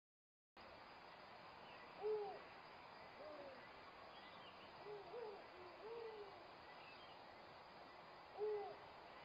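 Owl hooting: a series of short hoots that rise and fall in pitch over a steady background hiss. Two louder hoots come about two seconds in and near the end, with softer ones between.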